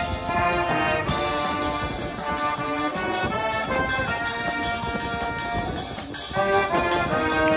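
Brass band with tubas and a drum kit playing a tune live, held brass chords changing every half second or so, with a brief break about six seconds in.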